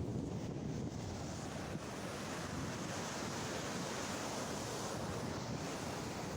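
Ocean surf washing up the beach, a steady hiss of breaking waves, with wind noise on the microphone.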